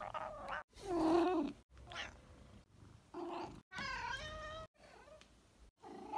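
Exotic Shorthair cat making a string of short meows and little squeaky vocal noises, separated by brief silences. The loudest comes about a second in, and a clear meow comes about four seconds in.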